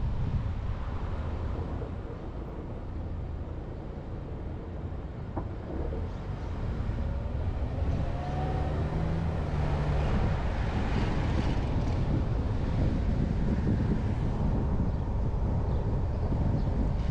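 Car driving slowly through town streets: a steady low rumble of engine and tyres with some wind on the microphone. It eases off for a few seconds, then grows louder again, with a brief engine hum about halfway through.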